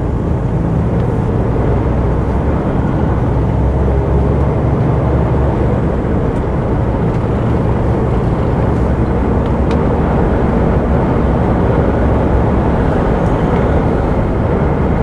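A DAF XF 106 semi truck's PACCAR MX-13 six-cylinder diesel running under way, a steady low rumble mixed with road noise.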